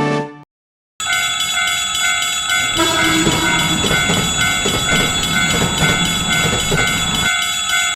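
Japanese railroad crossing warning bell ringing its repeating "kan-kan" alarm, starting about a second in. From about two seconds in, a train passes, its wheels clattering rhythmically over the rail joints; the clatter stops shortly before the bell.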